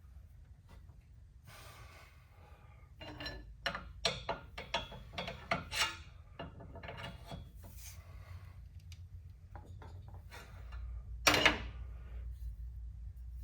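Tools and metal parts being handled during work on a transmission mount: a run of quick scrapes and clinks, then one louder knock about eleven seconds in.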